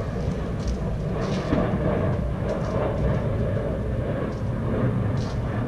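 2010 Chevrolet Camaro SS 6.2-litre V8 running steadily at idle through a newly fitted Borla S-Type muffler, a deep, even exhaust note.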